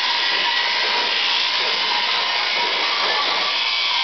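Sheep-shearing handpiece on an overhead-drive shearing plant running steadily as it cuts through a sheep's fleece: a constant motorised hum with a faint steady whine.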